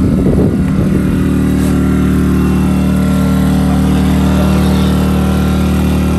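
Engine running steadily on a fishing boat: an even hum, rough and fluttering for about the first second before it settles.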